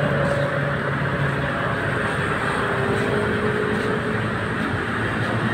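Steady rumbling noise of vehicle traffic, with a faint engine drone that shifts slightly in pitch.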